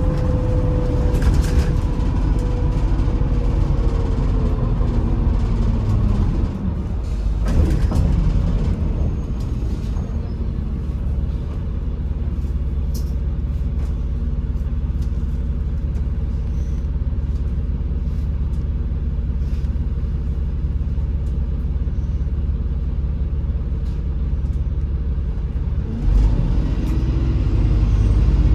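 MAZ-203 city bus heard from inside: its drive whine falls in pitch as the bus slows, a brief hiss about seven seconds in, then a steady low rumble while it stands, and the whine rises again near the end as it pulls away.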